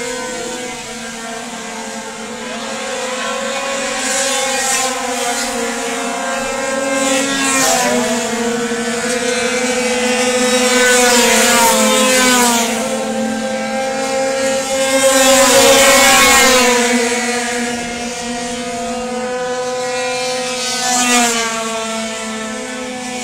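Racing scooters' engines running at high revs on track, several at once, their pitch rising and falling as riders pass. The sound swells to its loudest as scooters pass close about two-thirds of the way through.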